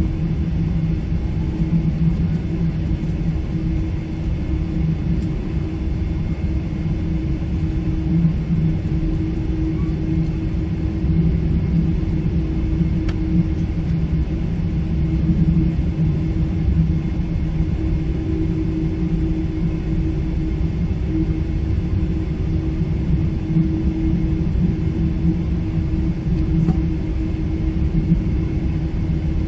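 Cabin noise at the rear of a Boeing 777-300 on the ground before takeoff: a steady low rumble with a constant droning hum underneath.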